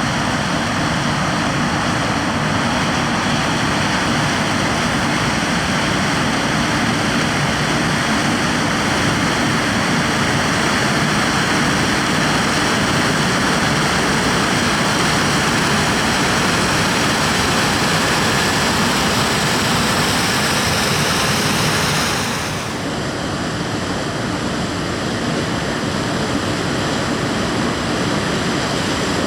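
Heavy farm machinery running steadily under load during corn harvest: a dense engine and machine noise. About two-thirds of the way through, the sound changes abruptly and becomes slightly quieter.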